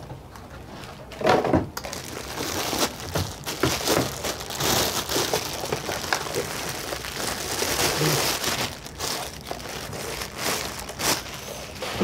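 Clear plastic bag and paper packaging crinkling and rustling as they are handled and pulled off a hand vacuum, with irregular crackles and a few louder handling noises.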